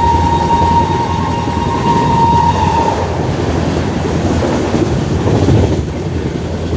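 WAP-7 electric locomotive's horn sounding one shrill, steady note that cuts off about three seconds in. Beneath it and after it, a passenger train runs through at speed with a continuous rumble and wheels clattering over the rail joints.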